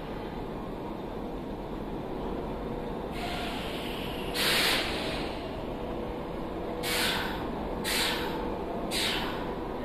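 Compressed air hissing from a standing Semboku Rapid Railway commuter train's pneumatic brake system, over the train's steady hum. A hiss builds about three seconds in and peaks in a loud burst, then short hisses follow about once a second.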